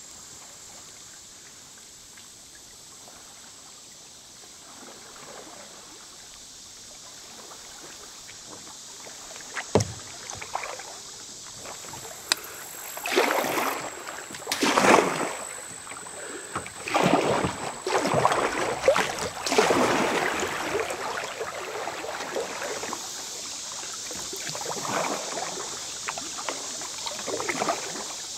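Kayak paddle strokes splashing in a shallow, rippling stretch of river. The strokes get louder about halfway through, coming every second or two, and there is a single sharp knock about ten seconds in.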